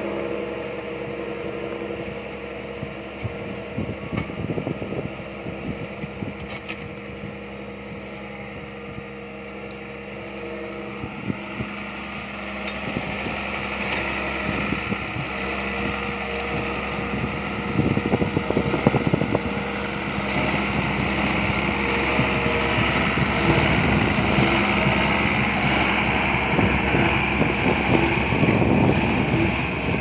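John Deere 7920 tractor's 8.1-litre six-cylinder diesel running under heavy load while pulling a single-furrow plough deep through the soil, growing louder in the second half as the tractor comes back towards the listener.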